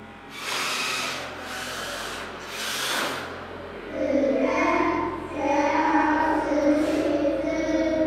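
Three short rushes of hiss, then from about four seconds in, children's voices singing.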